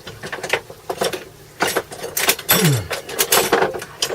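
Rummaging through small metal tools and parts to find a magnet: a run of clinks and rattles, busier in the second half, with a short falling scrape about halfway through.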